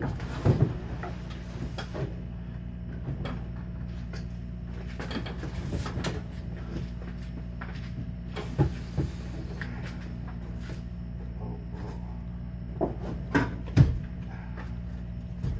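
Hobie Pro Angler 12 plastic fishing kayak bumping and knocking against a truck-bed rack as it is slid in by hand. Scattered knocks, the loudest pair near the end, sound over a steady low hum.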